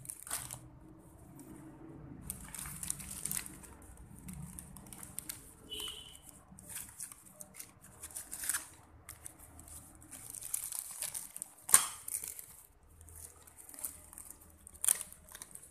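Plastic wrapping of a soft tissue pack crinkling and rustling in irregular spells as a strap-type car tissue holder is worked onto it, with a few sharp clicks, the loudest about twelve seconds in.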